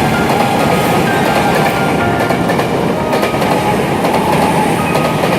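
Electric commuter train of the Chiyoda Line subway running, a steady dense rumble of wheels on rail that holds even throughout.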